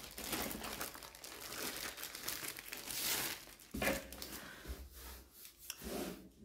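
Clear plastic sleeve crinkling as it is slid and pulled off a rolled diamond painting canvas, with a couple of dull knocks in the second half as the roll is handled on the table.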